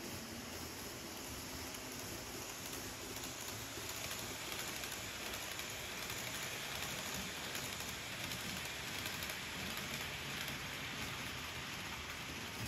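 Kato N-gauge model of a 683 series 4000 sub-series train running on the layout track: a steady, hissing rattle of small wheels on rails, a little louder in the middle as it passes.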